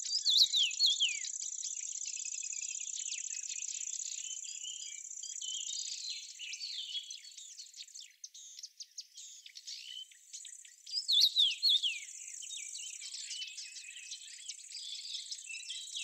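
Birds calling with short chirps and quick falling whistled notes, loudest right at the start and again about eleven seconds in, over a steady high-pitched trill of insects.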